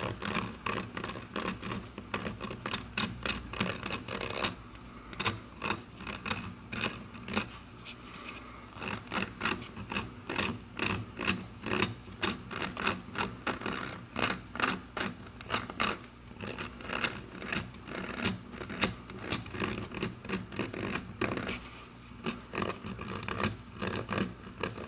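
Small carbide burr in a rotary tool cutting into a briar pipe bowl, texturing the wood. It makes a scratchy rasping in quick, irregular strokes, a few each second.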